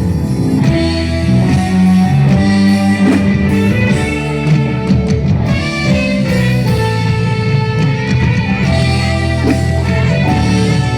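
Live band playing an instrumental passage, a guitar carrying the melody over a steady bass line.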